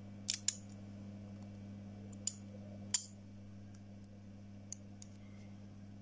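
Metal tweezers clicking against a phone's circuit board and parts during a charging-port repair: a few short, sharp clicks, two close together near the start and two more about two to three seconds in, over a steady low hum.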